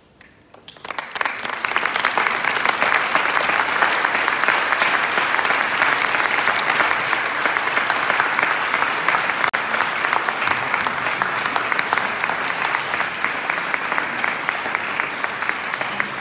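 An audience bursts into applause about a second in, a dense, steady clapping of many hands.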